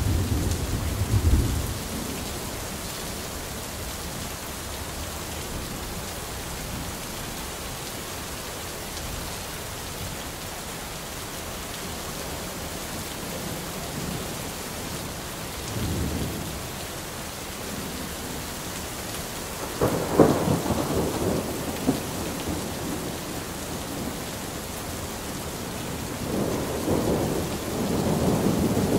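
Thunderstorm: steady rain with rolling thunder. A rumble fades in the first couple of seconds, a low roll comes about halfway, a louder, sharper clap about two-thirds through, and another rumble builds near the end.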